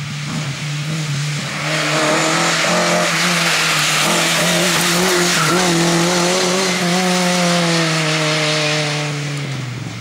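Lada VFTS rally car's four-cylinder engine running hard as the car passes close, with a loud rush of tyre and exhaust noise. Near the end the engine note falls in pitch and fades as the car drives away.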